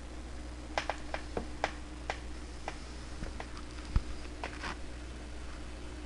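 Light clicks and taps of Dacron fabric pieces and a burnishing tool being handled and pressed on a tabletop while creasing folds, with one dull thump about four seconds in, over a steady low hum.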